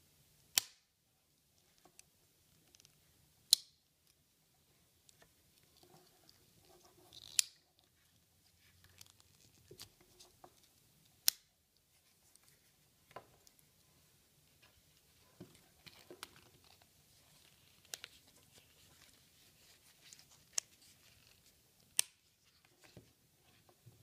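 Victorinox Spartan Swiss Army knife blades and tools being opened and folded, each snapping into place with a sharp metallic click, about ten clicks a few seconds apart, with soft handling sounds between.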